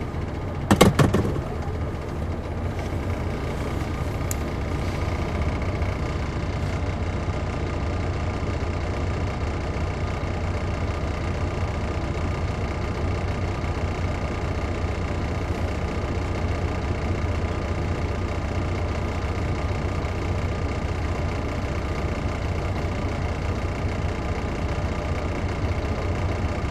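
The Detroit Diesel Series 60 engine of a 2001 MCI D4000 coach running steadily, heard from inside the bus. About a second in there is a brief, loud cluster of sharp knocks.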